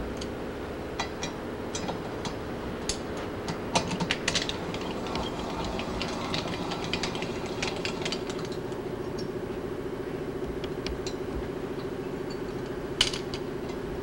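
Milling machine running with a steady hum while a recess is cut in a Harley-Davidson Shovelhead cylinder head for a second spark plug, with scattered metal clicks in the first few seconds and a single sharp clink near the end.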